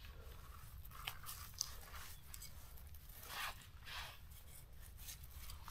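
Short crunches and scrapes of forest-floor litter being disturbed while mushrooms are handled and picked, a few separate sounds with two louder ones about three and a half and four seconds in.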